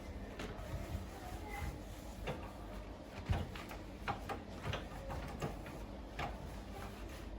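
Scattered light clicks and knocks of objects being handled, the sharpest a knock about a third of the way in, over a low steady hum.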